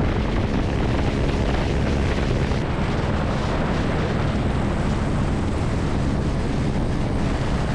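Snow avalanche set off on purpose, sliding down a slope: a loud, steady rumble.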